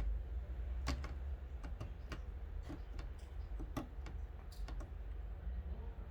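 Light, irregular clicks and taps, about a dozen, from small reel seat parts being handled and fitted, over a steady low hum.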